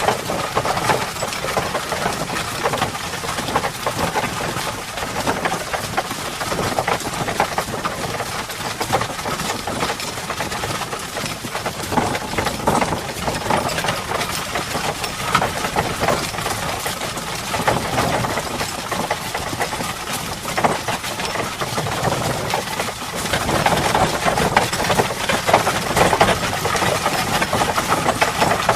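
Horse and cart on the move: a continuous dense clatter of hooves and the cart's rattling, slightly louder from a little past two-thirds of the way through.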